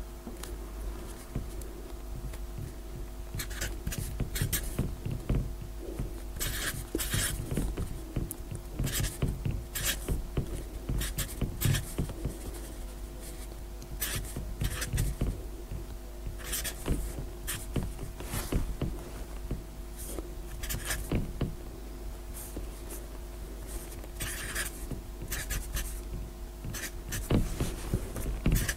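Felt-tip marker writing digits in quick, short, irregular strokes, each stroke a brief scratch, over a steady low hum.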